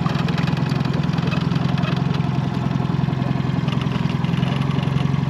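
Small boat's outboard engine running steadily at low speed, an even engine hum with a fast, regular pulse.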